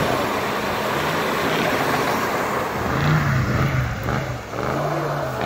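Ford F-250 Super Duty pickup engine working to climb a slippery snowy hill. It runs under a dense rushing noise, and about three seconds in its pitch rises and falls as it revs up and down.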